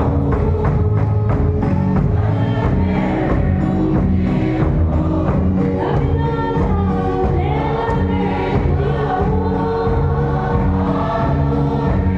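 A congregation singing a hymn together, with a large drum beating a steady rhythm and electronic keyboard accompaniment.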